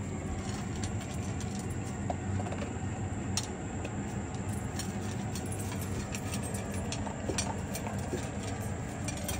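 Dog eating dry food from a stainless steel bowl: irregular crunching and small clicks of kibble against the metal as it chews, over a steady low hum.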